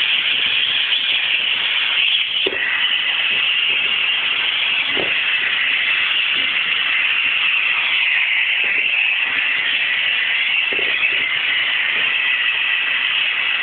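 Vacuum cleaner running with a steady hiss while a puppy bites and tugs at its hose, with a few soft knocks.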